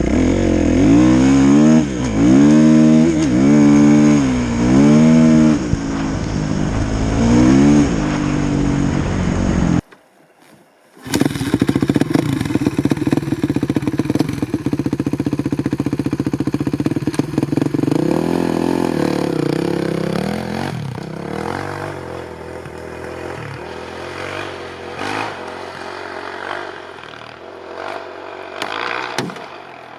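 Kawasaki KX450F motocross bike's single-cylinder four-stroke engine revved in repeated sharp blips, about four in a row. After a brief break it runs at a steadier pitch, then falls lower and quieter, with some clattering near the end.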